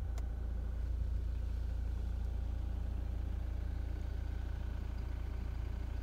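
Four-wheel-drive vehicle's engine running steadily, heard from inside the cab as an even low rumble.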